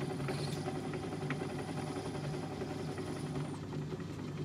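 Myford ML7 metal lathe running steadily with a small phosphor bronze bush turning in the chuck, a continuous mechanical hum with a few faint clicks. A faint, thin high whine stops about three and a half seconds in.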